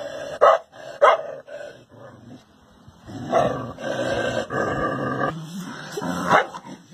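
A dog barking: two sharp barks in the first second or so, a longer drawn-out call around the middle, and another bark near the end.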